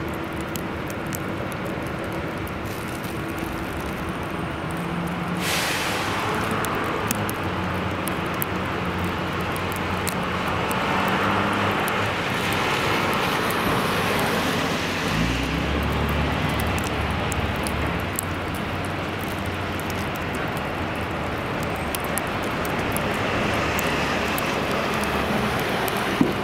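Street traffic on a wet, slushy avenue: vehicles passing with tyre noise, a short hiss about five seconds in, and a heavy truck's engine rumbling past about midway.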